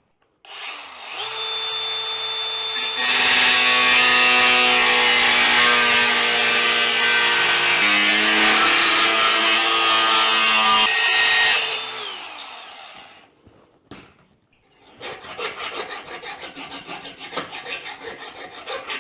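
Power tool with a cutting wheel, such as an angle grinder, spinning up and then cutting steel for about nine seconds, its whine dropping in pitch under load, before winding down. After a short pause, quick rasping strokes of filing metal begin.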